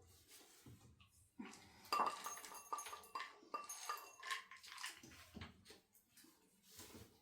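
Scattered small clicks, clinks and rustles of things being handled, with a thin steady tone lasting about two seconds from about two seconds in.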